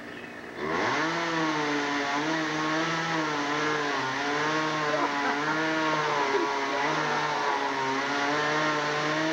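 Chainsaw engine revs up about half a second in, then runs at full throttle cutting into a tree trunk, its pitch wavering under load.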